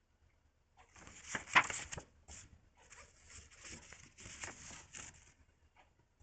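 Paper rustling as a magazine is handled and its pages turned, with a sharper crinkle about a second and a half in, stopping about a second before the end.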